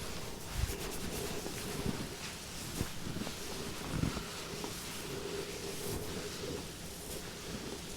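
Hands rubbing and pressing on bare skin during a deep-tissue massage, a steady rustle broken by a few soft thumps.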